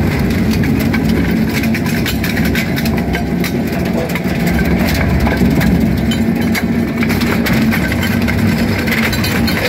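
ARP EZ 100 single-shaft shredder running, its toothed rotor grinding through a load of mixed scrap including aluminium. A steady motor drone runs under constant crunching and cracking as pieces are caught and cut.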